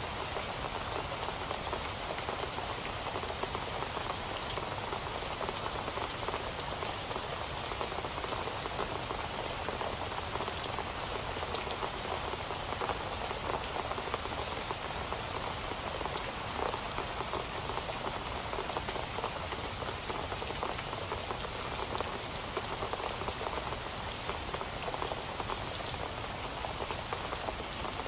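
Steady rain falling on a surface, a dense, even patter of drops with no let-up.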